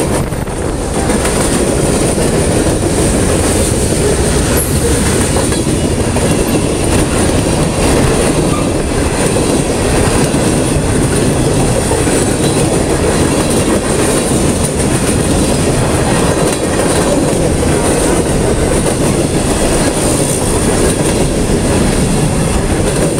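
Norfolk Southern mixed freight train's cars rolling past at speed: a loud, steady rumble and rattle of steel wheels on the rails, with clickety-clack over the rail joints.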